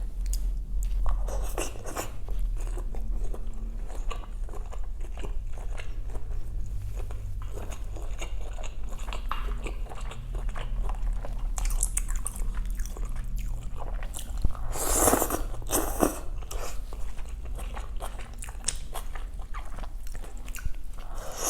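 Close-miked eating: a person chewing and biting food with small wet clicks and crunches, a louder burst of noise about fifteen seconds in, over a steady low hum.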